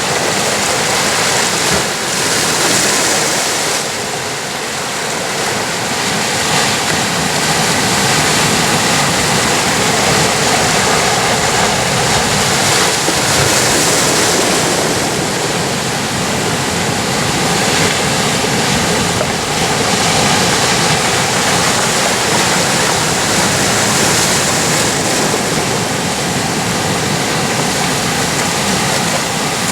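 Atlantic Ocean waves breaking on rocks: a loud, continuous rush of surf that swells and eases, with stronger surges roughly every ten seconds.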